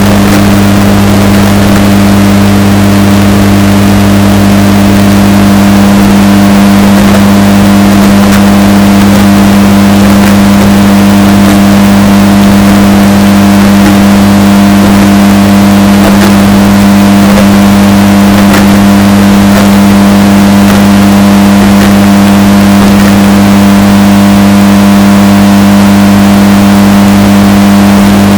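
Washing machine running with a steady, unchanging droning hum, heavily bass-boosted and distorted to near full loudness.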